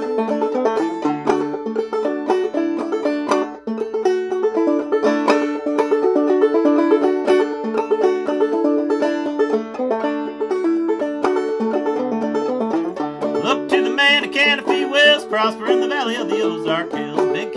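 Open-back banjo played clawhammer (frailing) style: a quick, steady run of plucked and brushed notes.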